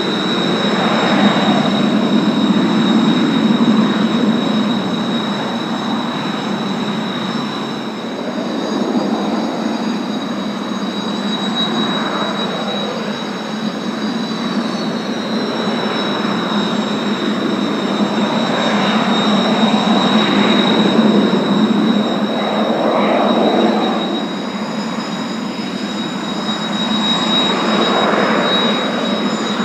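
Kawasaki T-4 jet trainers' turbofan engines running on the ground: a steady high whine of several tones, a few of them shifting in pitch, over a rushing jet roar that swells and fades every few seconds.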